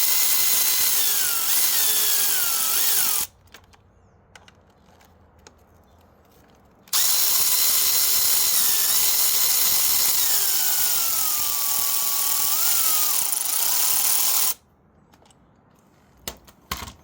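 Cordless power tool spinning a socket on the 8mm brake caliper bolts, in two runs: a short one of about three seconds, then after a pause a longer one of about eight seconds. Each time the motor whine holds steady, then slides down in pitch as the tool works the bolt.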